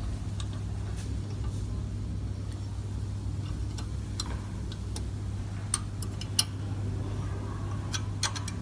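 Irregular sharp metal clicks and taps as the guide bars of a blister packaging machine's blister magazine are adjusted by hand, several in quick succession near the end, over a steady low machine hum.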